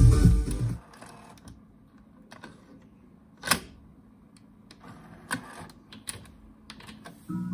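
Mechanical clicks and clacks from a Sony TC-WR97ES cassette deck as deck A's cassette door is opened and shut on a tape and a transport button is pressed; the sharpest clack comes about three and a half seconds in. Music fades out in the first second and music with mallet-like tones comes back just before the end.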